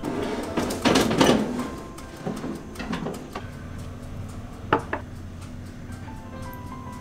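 Kitchen handling sounds: a scraping, rustling clatter about a second in as a parchment-lined baking tray is handled, a few soft knocks, then two quick clinks of a metal spoon against a glass mustard jar near five seconds. Background music plays underneath.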